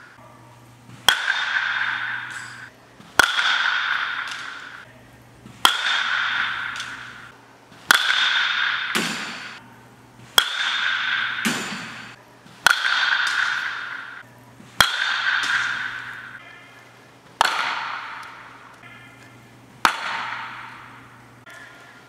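Baseball bat hitting pitched balls, nine sharp cracks about every two and a half seconds, each followed by a long ringing decay through the large indoor hall. A low steady hum lies underneath.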